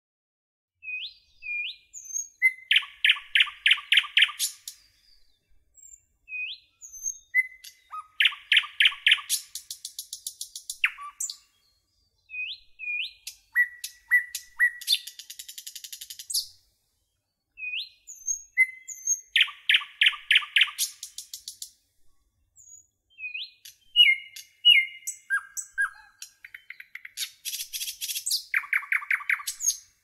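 A songbird singing, in repeated phrases every five or six seconds: a couple of short rising chirps, a fast trill, then high notes.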